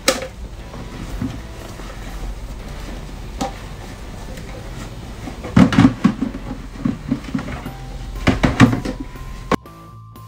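Dishes and plastic containers knocking and clattering in a kitchen sink as they are washed, in scattered clusters of knocks. Near the end the sound cuts off abruptly and background music takes over.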